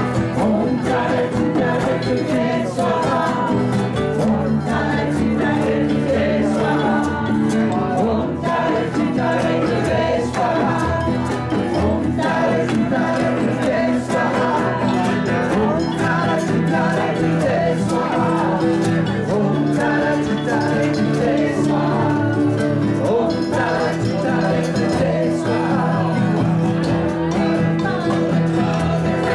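A group of voices singing a slow song together, led on microphones, over strummed acoustic guitars and a hand drum.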